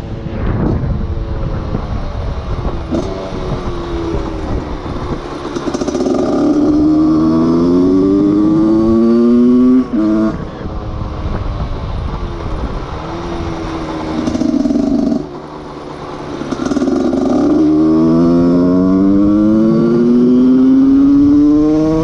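Husqvarna SM 125 two-stroke single-cylinder engine, fitted with a handmade exhaust silencer, accelerating hard. Its pitch climbs steadily for several seconds, drops off abruptly about ten seconds in and again about fifteen seconds in, then climbs again.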